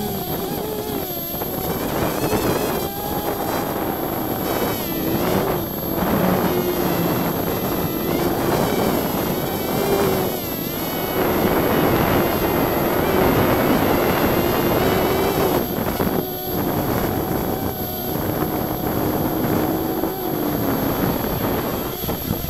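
Hubsan X4 quadcopter's small electric motors and propellers whining, heard close up from its own onboard camera, the pitch wavering up and down over a rush of propeller noise.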